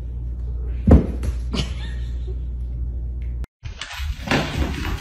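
Two thumps, a sharp one about a second in and a lighter one about half a second later, over a steady low hum; after a brief dropout a rougher hiss of background noise takes over.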